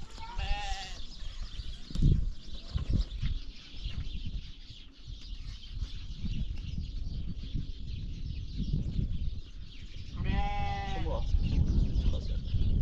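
A goat bleating twice: a short quavering call just after the start and a longer one about ten seconds in. Low rumbles and thumps sound between the calls, the loudest about two seconds in.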